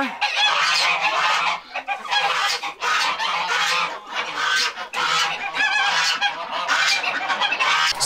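A flock of domestic geese honking all at once, a loud, continuous din of overlapping calls from the poultry barn's geese and other fowl.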